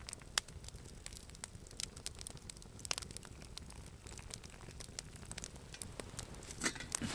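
Campfire crackling, with scattered sharp pops and snaps.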